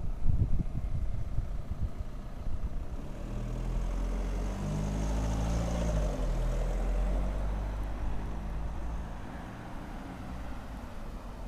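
A motor vehicle passing by: engine and road noise swell to a peak about six seconds in, then fade away. Low wind thumps on the microphone at the start.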